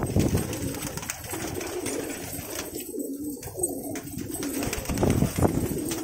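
A flock of Banarsi lalband fighter pigeons cooing steadily in a loft, many birds at once. There is a short flutter of wings at the start.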